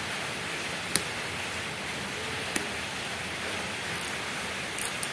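A few small, sharp clicks and ticks from hands pulling apart a laptop battery pack, prying at the cells' wiring and temperature sensor, the loudest about a second in and a small cluster near the end, over a steady hiss.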